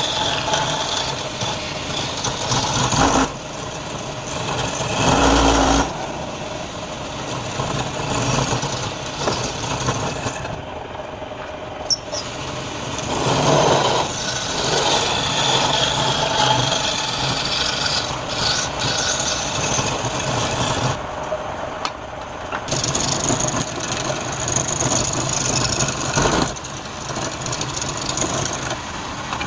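Wood lathe running while a turning tool cuts the spinning wood, giving a continuous rasping hiss over a low motor hum. The cutting eases off a few times, around 11 s and 21 s in.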